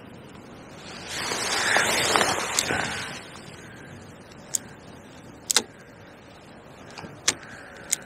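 A fishing reel being wound for about two seconds, taking up slack line after the cast, followed by a handful of sharp clicks as the rod and reel are handled.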